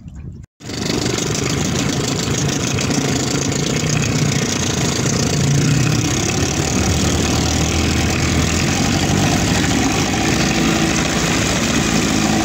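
A 1991 Johnson 20 hp two-stroke tiller outboard running steadily at speed, with water rushing and spraying from the propeller wash. It starts abruptly about half a second in and stays loud.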